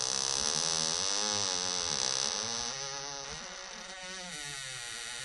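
Horror-film sound effect: a humming, buzzing tone whose pitch wavers slowly up and down, over a steady high hiss.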